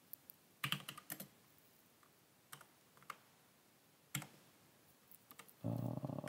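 Computer keyboard typing in scattered short bursts of keystrokes. Near the end a steady low hum starts suddenly and lasts just over a second, louder than the typing.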